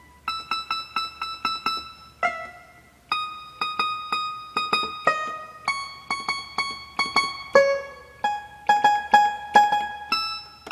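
Yamaha electronic keyboard's banjo voice playing a quick melody of short plucked notes, several a second, many of them repeated on the same pitch.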